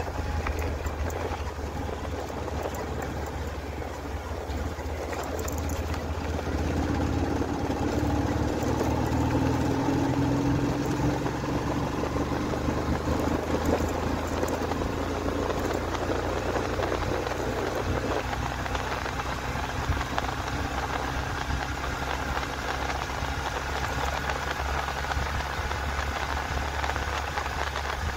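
Motorcycle engine running steadily under way, with road and wind noise. The engine note rises a little about a third of the way in and then holds.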